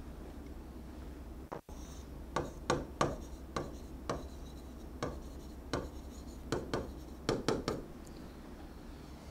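Stylus writing on an interactive display screen: faint, irregular taps and light scrapes of the pen tip on the glass as words are written by hand.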